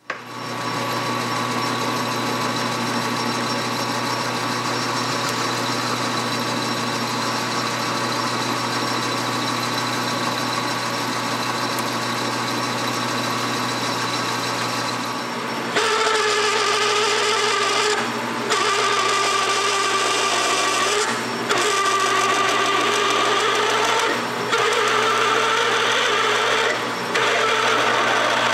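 Metal lathe starting up suddenly and running steadily with a constant gear whine while a carbide tool turns a steel bar. About halfway through, the sound gets louder and the whine wavers as a drill bores into the spinning bar. It briefly dips four times, a few seconds apart.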